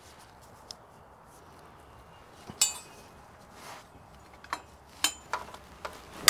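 Sharp metal-on-metal clinks from hand tools and exhaust hardware being handled. A loud, ringing clink comes about two and a half seconds in, and a run of lighter clinks follows near the end.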